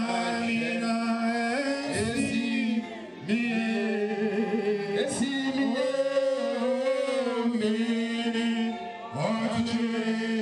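Voices singing a slow worship song in long held notes, with short breaks between phrases about three and nine seconds in.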